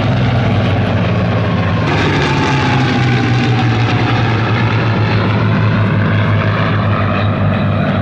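Hispano Buchon fighters' Rolls-Royce Merlin V12 engines droning steadily overhead. A higher tone slides slowly down in pitch from about two seconds in as the aircraft pass.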